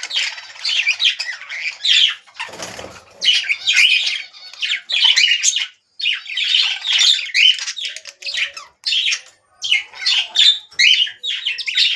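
Small pet parrots chattering with rapid, overlapping chirps and harsh squawks, with a brief rustling noise about two and a half seconds in.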